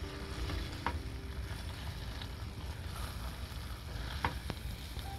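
Pasta being stirred into a creamy bacon sauce in a hot pan: a steady hiss from the pan, with a few sharp clicks of the spoon against the pan, about a second in and again around four seconds in.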